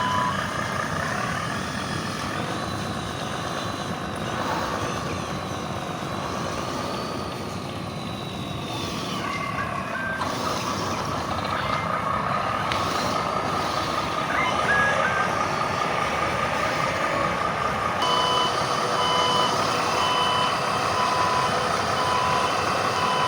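Truck engines running under load, with a whine that rises and falls in the first few seconds. From about two-thirds of the way in, a reversing alarm beeps about once a second.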